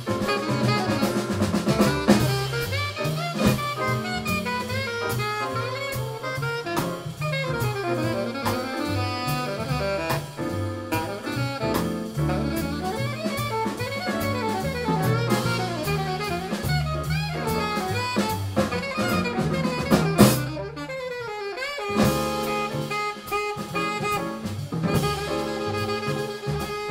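Live small-group jazz: an alto saxophone solos over a Nord stage piano, drum kit and upright bass. A sharp accent about twenty seconds in is followed by a brief break before the full band comes back.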